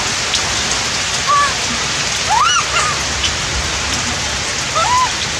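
Steady rain falling, with a few short, arched squeaky calls from a monkey: one a little over a second in, a stronger one around the middle, and another near the end.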